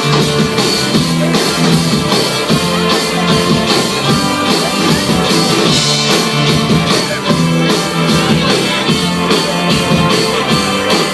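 Live rock band playing an instrumental passage: guitar and drum kit with a steady beat, no vocals.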